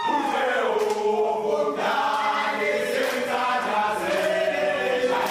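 A football team singing together: a chorus of men's voices in a chant-like song.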